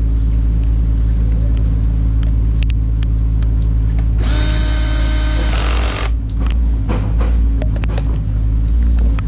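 A power tool, used on the wheel bolts, whirs once for just under two seconds about four seconds in. A steady low hum and scattered small clicks run under it.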